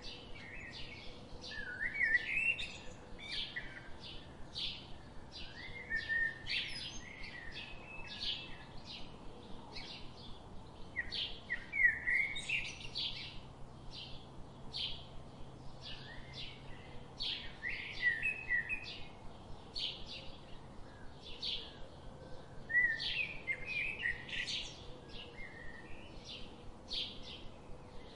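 Birds chirping: a steady run of short chirps, about two a second, with now and then a brief warbled phrase.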